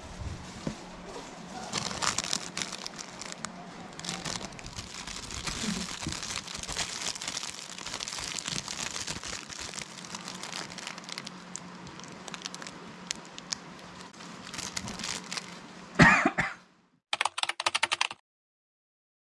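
Thin plastic bag crinkling and crackling as a powdered-sugar cream puff is handled and unwrapped. About 16 s in comes a loud cough, a choke on the powdered sugar, followed by a brief rapid keyboard-typing sound effect.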